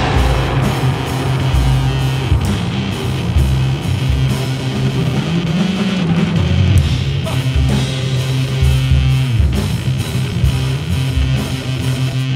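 Live jazz trio playing: grand piano, bass and drum kit, with a strong walking bass line underneath and busy drums and cymbals.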